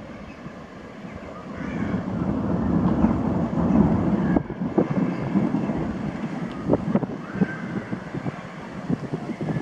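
Rolling thunder: a low rumble swells about two seconds in and is loudest around four seconds, then rolls on unevenly with a few short, sharp crackles.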